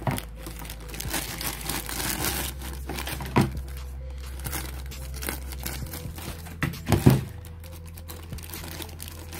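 Thin clear plastic bag crinkling as it is pulled open and the silicone wristbands inside are handled, with two louder bumps about three and a half and seven seconds in.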